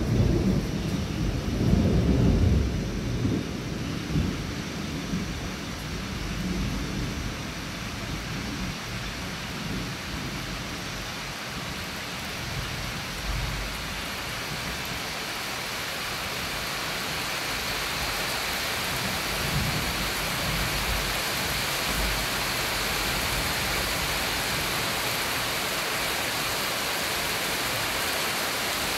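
Heavy tropical rain falling steadily with thunder rumbling through it. The loudest rolls of thunder come right at the start and again about two seconds in, with fainter rumbles later. The rain's hiss grows heavier through the second half.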